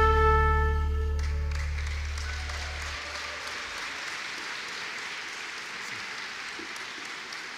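The final held trumpet note of a piece, over a backing track with a steady low bass tone; the trumpet stops about a second in and the bass about three seconds in. Audience applause starts as the note ends and slowly fades.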